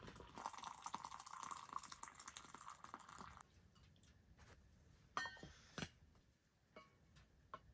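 Hot coffee pouring from an enamelware coffee pot into a metal tumbler, a steady trickle that stops abruptly about three and a half seconds in. A few light clicks follow.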